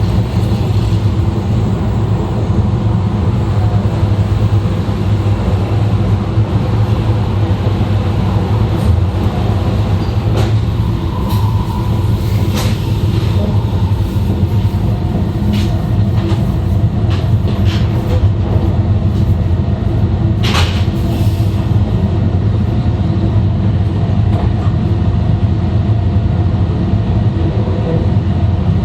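E2 series Shinkansen running at speed, heard from inside the car's vestibule: a steady low rumble with faint steady tones over it, broken by a few short sharp clicks, the loudest about twenty seconds in.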